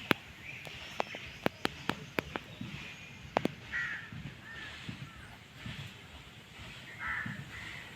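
A kitten mewing in short calls, with a run of sharp clicks in the first few seconds.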